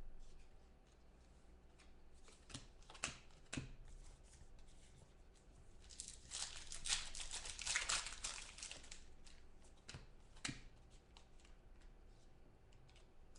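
A trading card pack's wrapper being torn open and crinkled, with a dense crackle about halfway through and scattered clicks of cards being handled before and after.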